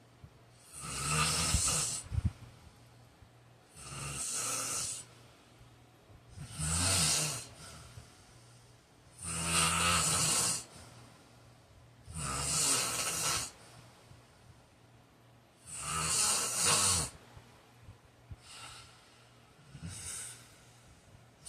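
A man snoring in his sleep: loud snores about a second long, coming regularly about every three seconds, with the last one or two weaker.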